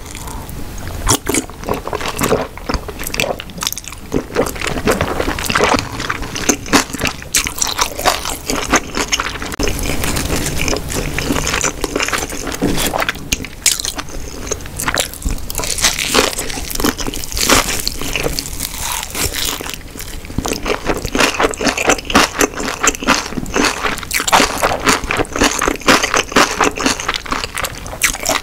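Close-miked eating sounds: a person biting into and chewing gimbap (seaweed-wrapped rice rolls) wrapped in a perilla leaf, with crunchy bites and a continuous run of wet chewing clicks.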